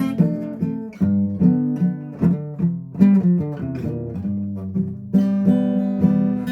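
Acoustic guitar chords strummed and picked, each chord struck sharply and left to ring, a new one about every second.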